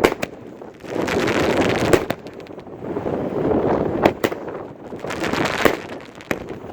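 A 25-shot consumer firework cake firing: a sharp bang about every two seconds, each followed by a swelling rush of noise about a second long.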